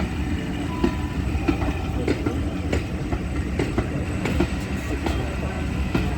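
Class 50 diesel-hauled train running, with a steady low rumble and a regular knock of wheels over rail joints about every two-thirds of a second.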